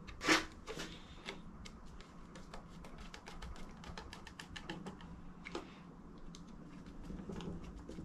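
Light metallic clicks and ticks of hand tools on the small screws of a motorcycle engine's breather cover: one sharper knock near the start, then a quick irregular run of ticks in the middle.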